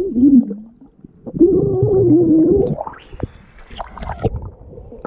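A person's voice in two drawn-out wavering cries, a short one at the start and a louder one of about a second and a half, followed by a few short sharp clicks.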